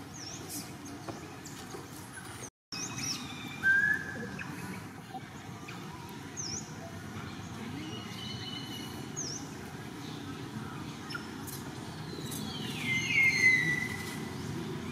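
Birds chirping: short high chirps every few seconds, then a louder, longer call that falls in pitch about 13 s in, over a steady low outdoor background.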